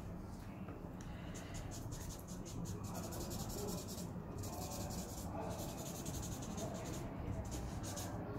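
Felt-tip marker scribbling on paper: quick, scratchy back-and-forth strokes, pausing briefly twice.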